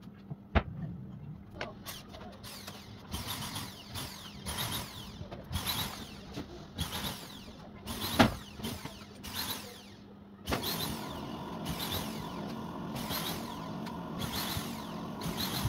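Woodworking machinery in a cabinet shop: a series of short mechanical bursts with a couple of sharp clicks, then about ten seconds in a machine starts and runs steadily.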